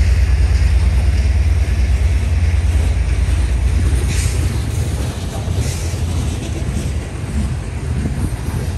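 Freight train of covered hopper cars rolling past at close range: a steady deep rumble of steel wheels on rail, easing about halfway through, with a few brief high clicks from the wheels and couplers.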